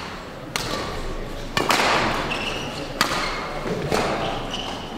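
Badminton rally: rackets striking the shuttlecock about once a second, four sharp hits, each ringing on in the echoing hall, with a couple of short high squeaks from shoes on the court floor between them.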